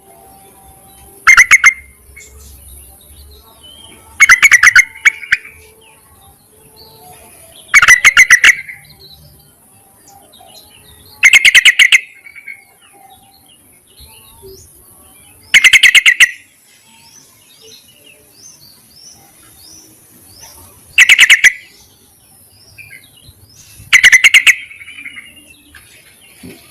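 Yellow-vented bulbul (trucukan), given as a female calling to males, giving short, loud bursts of quick repeated notes, seven times, every three to five seconds. Faint chirps from other birds sound between the bursts.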